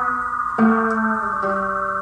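Amplified viola bowed in long sustained notes over a held high drone, with a new note starting about half a second in and another about a second and a half in.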